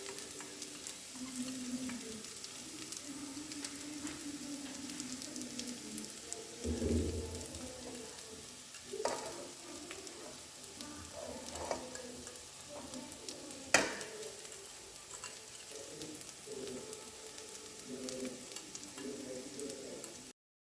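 Chicken and yam curry sizzling as it fries in a pan while being stirred, with a steady crackle and two sharp knocks of the spoon against the pan, the second louder.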